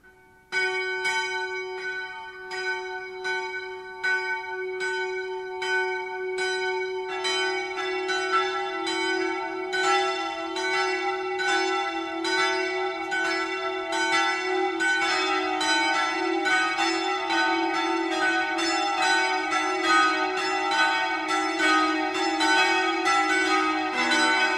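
Church bells ringing. A single bell starts striking steadily about half a second in, a second bell joins after about seven seconds, another about halfway through, and a lower bell near the end, building into a full peal.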